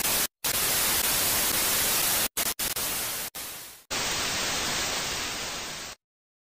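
Television static sound effect: a hiss of white noise that cuts out briefly several times, then runs steadily for about two seconds and stops abruptly near the end.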